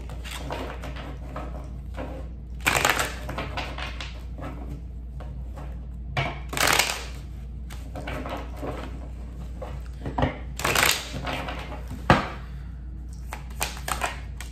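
A deck of tarot cards being shuffled by hand: a soft rustle broken by short, sharper bursts of riffling about every four seconds, with a quick flurry near the end.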